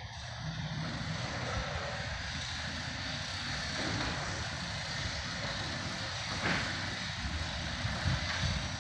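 LiftMaster garage door opener running steadily, its motor humming and the door rolling as it travels open.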